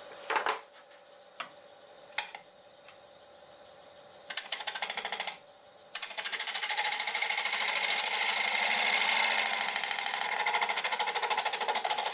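A bowl gouge cutting the inside of a spinning wooden bowl blank on a wood lathe, heard as a fast, even, rhythmic rasping. A short cut comes about four seconds in, and steady cutting starts about six seconds in. Before that there are a few sharp knocks over the lathe's faint steady whine.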